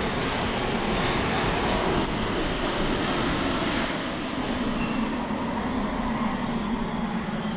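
Paris Métro MP73 rubber-tyred train running, a loud steady rumble with a motor tone that falls slowly in pitch.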